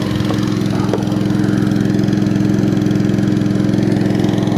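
Small boat engine running steadily at an even pitch.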